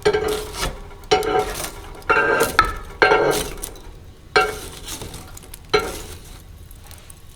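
A utensil clinking and scraping against kitchen dishware in about six separate strokes, each with a short ring.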